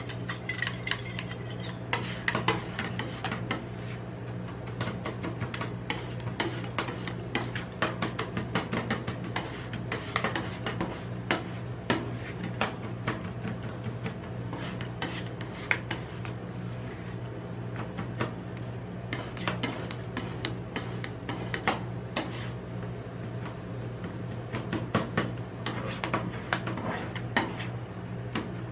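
Two metal spatulas chopping and scraping on a chilled steel rolled-ice-cream pan, working crushed Pringles into the cream base: rapid, irregular metal clinks and scrapes over a steady low hum.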